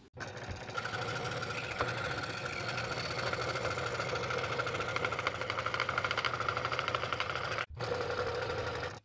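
Scroll saw running and cutting a 15-degree bevel around the outer ring of a segmented wooden bowl blank: a steady fast blade chatter with a hum under it, breaking off for a moment near the end.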